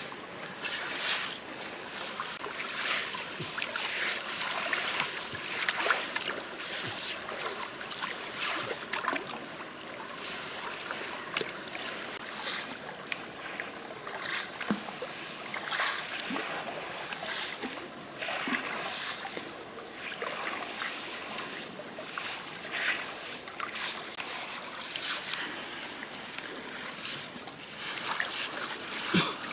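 Wet river gravel and stones being scooped and piled by hand in shallow water: repeated short clatters of stones and splashing water. A thin, steady high-pitched tone runs underneath.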